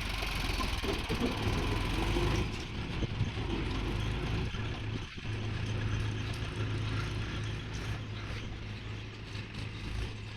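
Heavy diesel machinery engine running steadily with an even drone, with a slight dip about halfway through.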